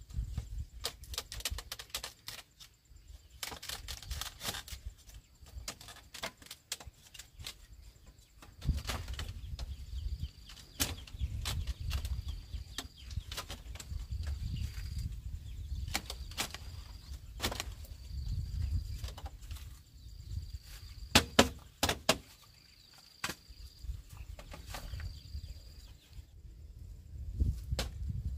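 Scattered sharp knocks and clatter of bamboo poles and slats being handled during coop building, loudest in a quick cluster about three-quarters through. A short high call repeats roughly once a second in the background through the middle.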